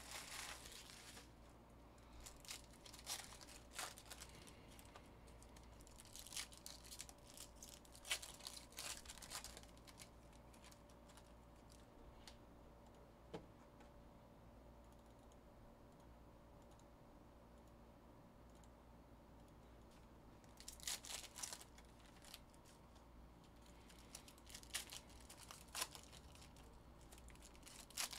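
Faint crinkling and tearing of foil trading-card pack wrappers, with light clicks of cards being handled, coming in short spells with a quiet stretch in the middle.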